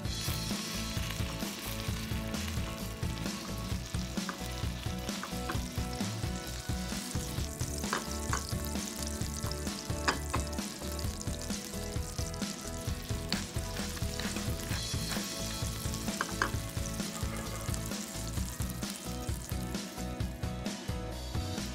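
Butter and onions sizzling steadily in a stainless steel sauté pan over a gas flame while they are stirred with a wooden spoon, with a few sharp clicks.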